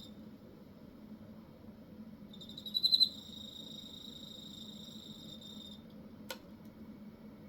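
Cricket trilling by rubbing its wings: a steady high-pitched song that breaks off at the start, comes back about two seconds in with a brief louder, stuttering onset, runs for about three and a half seconds and stops. A single sharp click follows near the end.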